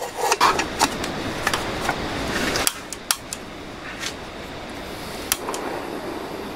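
SOTO Micro Regulator Stove being handled and screwed onto a gas canister: several sharp metal clicks and clinks, then the burner hissing steadily once it is lit.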